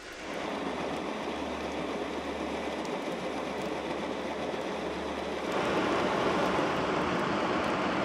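Propellers of a Gozo Channel car ferry churning, heard underwater through a hydrophone as a steady, dense mechanical noise with a low hum underneath. It gets louder about five and a half seconds in.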